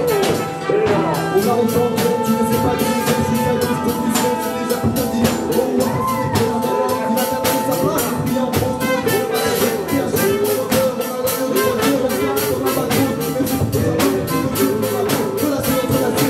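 Live band jamming: trumpets play held and moving lines over a drum kit keeping a steady, quick beat.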